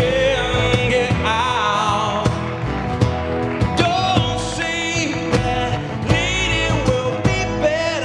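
Live band playing an upbeat rock-and-roll number with a singer, drums keeping a steady beat.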